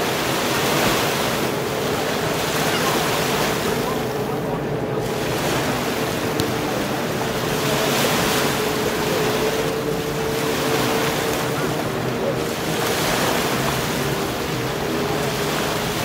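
Sea surf breaking and washing up a beach, the rush swelling and ebbing every few seconds, with a faint steady hum underneath.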